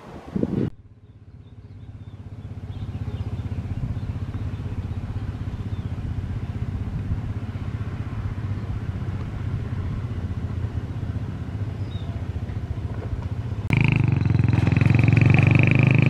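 Motorcycle engines running steadily at a level crossing. About fourteen seconds in, a louder sound with a steady high tone starts abruptly over the engines.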